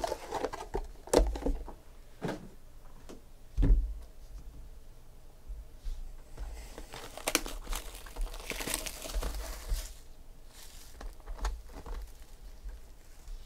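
Trading card packs and cardboard card boxes being handled on a table: a few sharp knocks as boxes and packs are set down in the first four seconds, then the packs' wrappers crinkling for a few seconds around the middle.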